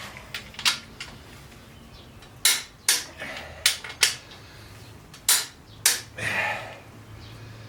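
Hand tools clanking against metal engine parts: about seven sharp, irregularly spaced knocks, then a short scrape near the end.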